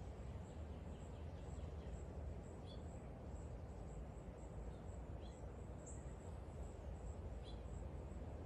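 Quiet outdoor garden ambience: a steady low background rumble, with a few faint, short bird chirps scattered through.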